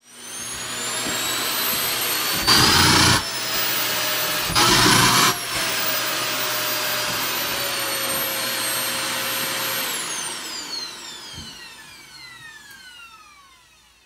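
Canister vacuum cleaner running with a steady high whine, with two brief louder rushes about two and a half and five seconds in. About ten seconds in it is switched off, and its whine falls in pitch and fades as the motor winds down.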